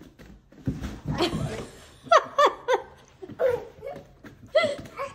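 A foam bodyboard with a toddler on it slides and bumps down carpeted stairs, then laughter breaks out about two seconds in as a quick run of ha-ha bursts, with more laughing near the end.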